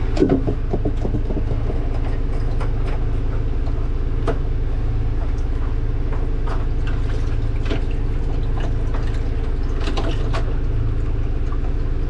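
Sailboat's inboard engine running steadily, heard below deck. Over it come scattered clicks and knocks as the paddlewheel speed transducer is worked out of its through-hull fitting in the cabin floor.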